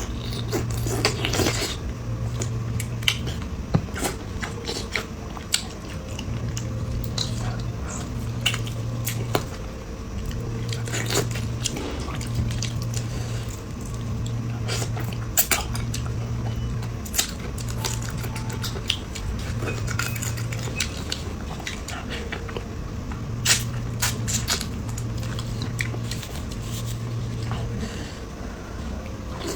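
Close-miked eating: chewing and biting, with many short, sharp clicks of utensils against dishes scattered throughout.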